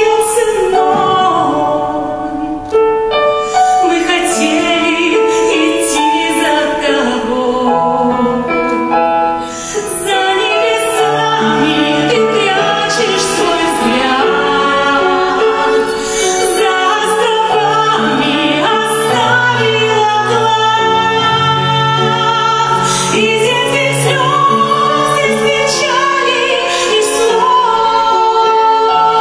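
A woman singing a slow ballad into a microphone, holding long notes, with violin and piano accompaniment.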